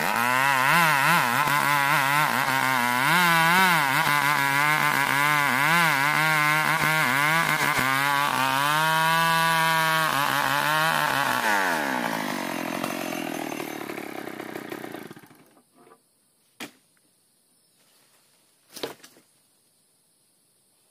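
Chinese-made two-stroke chainsaw running with its engine pitch wavering, as when ripping ulin (Borneo ironwood) planks. It holds a steady higher pitch briefly, then its pitch falls away as the engine winds down and stops about fifteen seconds in. Two short sharp knocks follow.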